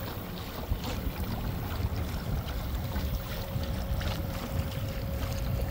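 Wind buffeting the microphone on a kayak, a steady low rumble, with scattered light clicks. A faint steady hum comes in about halfway through.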